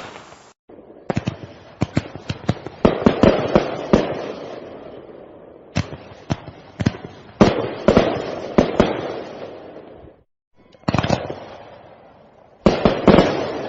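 Aerial fireworks bursting: quick volleys of sharp bangs, each followed by a long echoing rumble. The bangs stop twice, briefly, about half a second in and just after ten seconds.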